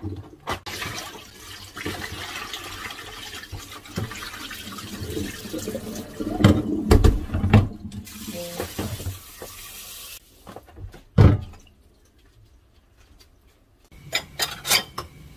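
Kitchen tap running into the sink, with splashing and things being handled and knocked in the basin; several heavy knocks come about six to eight seconds in. The water shuts off about ten seconds in, followed by one more knock.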